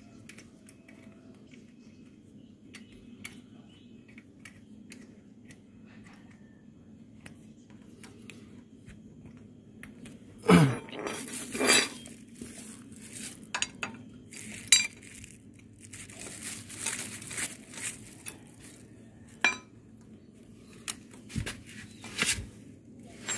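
Metal clinking and scraping of a wrench being worked on a motorcycle starter motor's mounting bolts. After a quiet stretch of faint ticks, a run of sharp clanks starts about ten seconds in.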